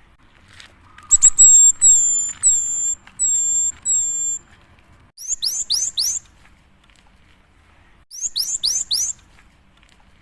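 Cinereous tit (gelatik batu) singing: a run of five high, clear whistled notes, then two quick bursts of four or five sharply rising notes.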